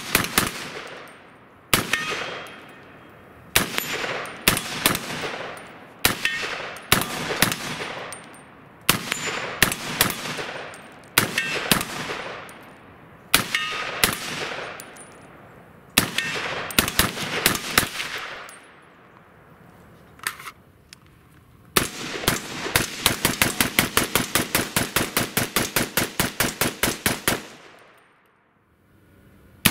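A 300 AAC Blackout AR-15 pistol with an 8.5-inch barrel fires semi-automatic shots, each followed by a rolling echo. For most of the stretch it fires in small groups of two to four shots with pauses between them. Then comes a fast string of about two dozen shots at roughly four a second, a short lull, and more shots near the end, with steel targets faintly ringing when hit.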